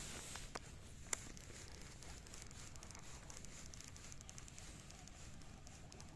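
A few sharp clicks from a phone camera being handled, the loudest about a second in, then faint low rumble with soft, rapid high ticking.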